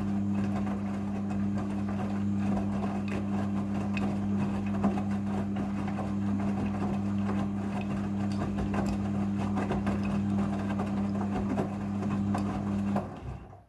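Midea front-loading washing machine running during the rinse: a steady electrical hum over a noisy wash with many small clicks, cutting off suddenly about a second before the end.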